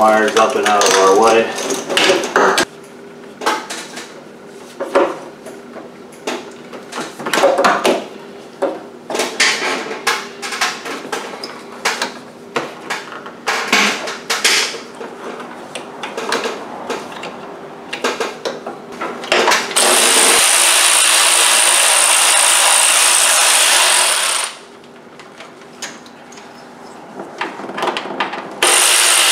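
Metal hand tools and parts clinking and knocking, then a power ratchet running in two steady spells: one of about four seconds, and another starting near the end.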